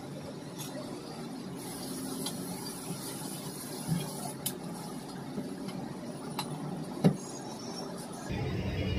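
Light clicks and knocks of kitchenware being handled at a counter, the sharpest one about seven seconds in, over a steady background hum.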